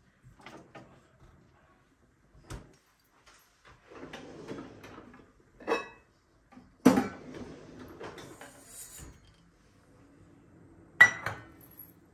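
Dishes and utensils being handled: scattered knocks and clatters, with two loud hits about seven and eleven seconds in, the second ending in a short ringing clink. A faint steady hum comes in near the end.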